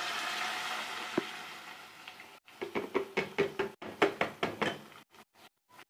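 Thick, cooled rice peech going into a pot of hot fried masala, with a hiss that fades over about two seconds. Then a run of about ten quick knocks, about four a second, as a utensil taps out the last of the thick peech into the pot.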